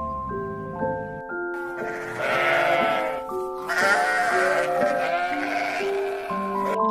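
An animal bleating twice, each call about a second long and wavering, over background music of held melodic notes.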